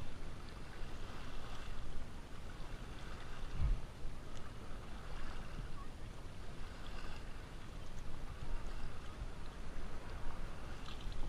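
Paddles dipping and pulling through the water beside an outrigger canoe, a stroke every second or two, over steady water noise along the hull.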